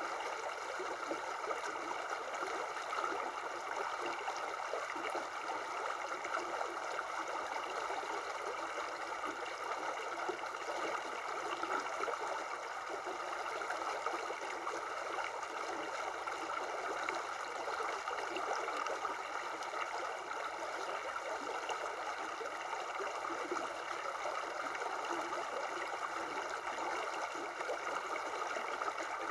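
Shallow river water running over stones: a steady, even rush of flowing water.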